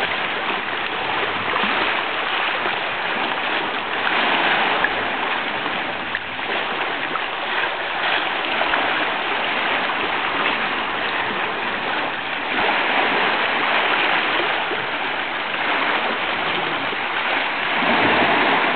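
Sea water washing against a pebble shore: a steady rushing that swells and eases every few seconds.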